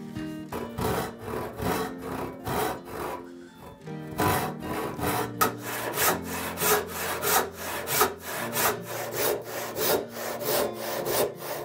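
Handsaw cutting through a wooden board with steady strokes, about three a second, pausing briefly about four seconds in before carrying on.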